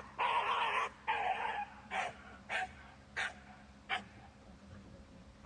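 A dog barking: a quick run of loud barks, then a few short, sharp yips spaced a little over half a second apart.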